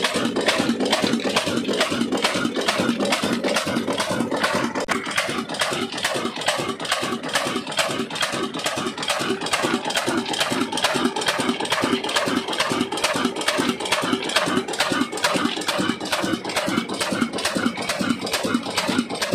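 Old Ruston Hornsby horizontal single-cylinder diesel engine running steadily, its exhaust and valve gear beating evenly at about three to four beats a second.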